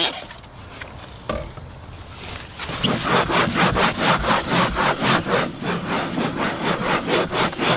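A cloth scrubbed back and forth over the embossed, pebble-textured wall of an RV slide-out, wiping it down with denatured alcohol. Quick, even rubbing strokes, about three a second, start about three seconds in.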